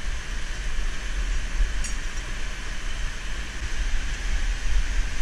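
Steady rush of falling water from a nearby canyon waterfall, with low rumbling wind on the helmet camera's microphone and a faint click about two seconds in.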